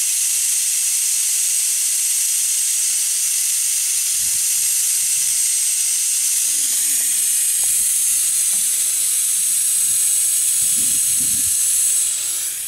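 Air hissing steadily out of a Jeep tire's open valve stem, its Schrader valve core removed so the tire deflates fully. The hiss eases a little near the end.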